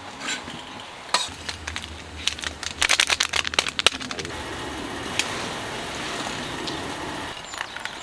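Metal and ceramic cups clinking and tapping as they are handled, then a steady hiss of water being poured into a stainless steel cup over a tea bag.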